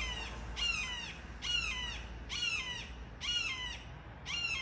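A bird calling loudly, the same call repeated six times just under a second apart, each call falling in pitch.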